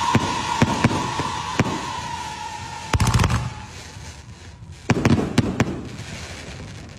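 Fireworks going off: a steady whistle that slowly falls and fades over the first three seconds, over scattered sharp cracks, then two loud clusters of bangs about three and five seconds in.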